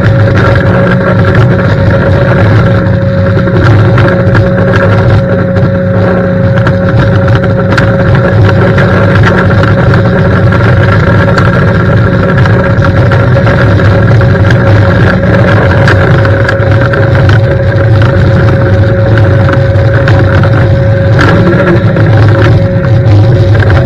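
20-inch Whirl-A-Way pressure-washer surface cleaner running over wet block paving: a loud, steady rush of its spinning high-pressure water jets over a low hum with a constant whine.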